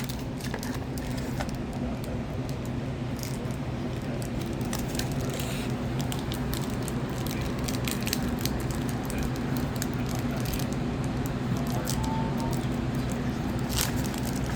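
Card packs and cards being handled: scattered crinkling and small clicks of wrappers and cards over a steady low hum.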